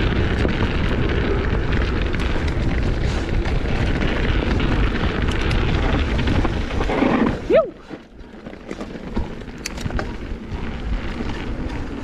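Wind buffeting the microphone and tyres rumbling over a dirt trail on a fast mountain bike descent. The noise drops off sharply about seven and a half seconds in, just after a short squeak, leaving quieter rolling with scattered light clicks.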